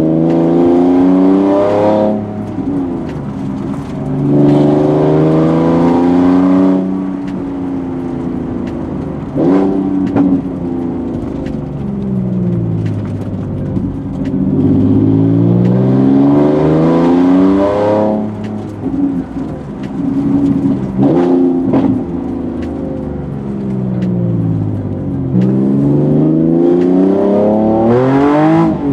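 Nissan 370Z Nismo's 3.7-litre V6, heard from inside the cabin, accelerating repeatedly through the gears. The engine note climbs in pitch, drops at each gear change and climbs again, several times.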